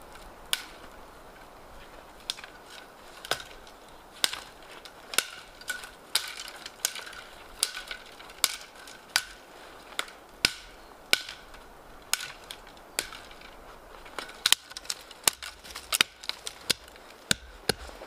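Dry dead spruce branches cracking sharply as they are broken off a trunk, about one crack a second, quickening into a rapid run of cracks near the end.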